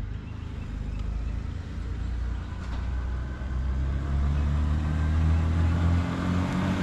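2016 Honda Gold Wing's flat-six engine pulling away and gathering speed, its low, even note growing gradually louder.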